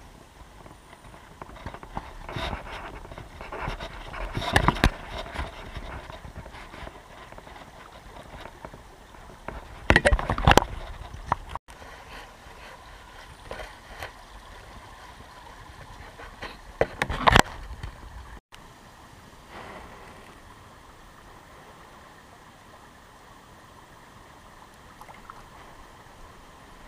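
Shallow stream running over stones, with clusters of loud knocks and rustles close to the microphone three times.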